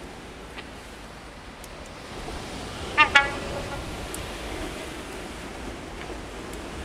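Horn of an approaching HST (InterCity 125) Class 43 power car sounding two short blasts in quick succession about three seconds in, over a steady rushing background that grows a little louder as the train nears.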